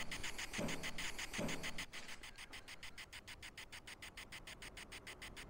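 Faint, fast, even clicking from a Vox spirit-box app sweeping, with two soft low knocks in the first two seconds, taken for a bang from the far end of the railway tunnel.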